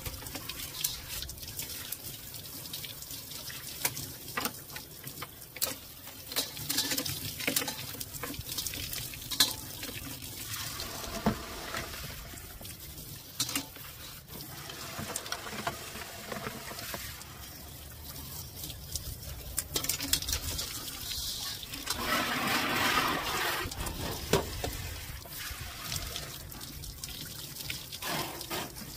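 Water spraying from a garden hose nozzle and splashing onto cookware being rinsed, with occasional knocks as the pots and boards are handled. The water rush grows louder for a couple of seconds about three-quarters of the way through.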